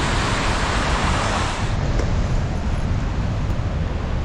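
Steady rushing roar of a waterfall, with wind buffeting the microphone. Just under two seconds in, the hiss of the rushing water suddenly drops away and the sound turns duller.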